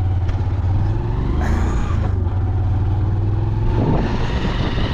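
Motorcycle taxi's engine running steadily with a low hum. A broad rushing noise joins it about four seconds in.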